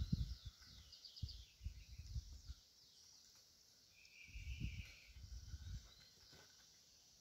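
Faint rural outdoor ambience: birds chirping, with low rumbling noise through the first two and a half seconds and again from about four to six seconds in.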